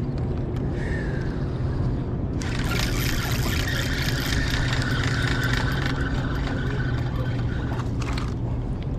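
Boat motor running steadily with a low hum. From about two and a half seconds in until about eight seconds, a louder hissing water sound lies over it.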